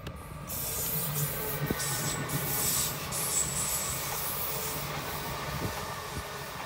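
Stadler FLIRT electric multiple unit passing close by at speed: a steady rush of wheels on rail and air, growing louder about half a second in, with a low hum beneath it.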